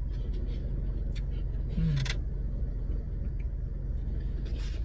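Steady low rumble of a parked car running, heard inside its cabin. About two seconds in, a short slurp of consommé from a cup comes with a brief low 'mm'.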